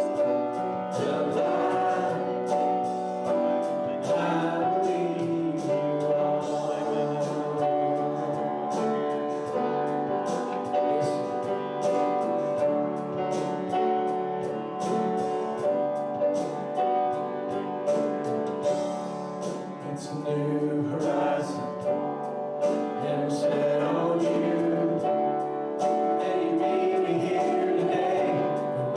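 A church congregation and worship band singing a hymn or worship song, voices over instrumental accompaniment with a steady beat.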